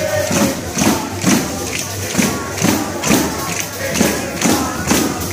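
Live folk music with a tambourine or jingled frame drum struck in a steady beat, a little over two strikes a second, over crowd voices.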